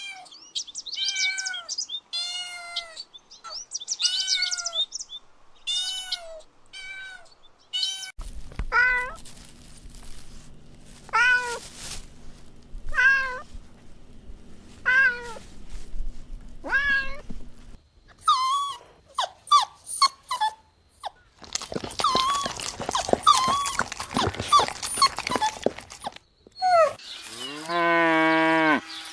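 Young puppies whimpering in a run of short, high-pitched cries, about one a second. Near the end comes one longer, lower whine.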